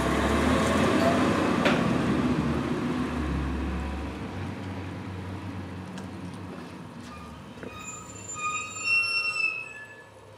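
Brush truck with a grapple loader driving away, its engine rumble fading over several seconds, with a single knock a little under two seconds in. Near the end, birds chirping.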